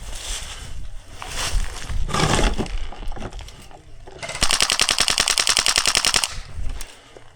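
Airsoft gun firing one full-auto burst of about two seconds, a fast, even rattle of shots, about four seconds in. Before it come a few irregular rustling noises.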